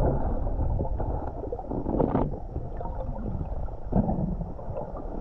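Muffled rush of river current picked up underwater, a steady low noise with a couple of short knocks, about two seconds in and again near four seconds.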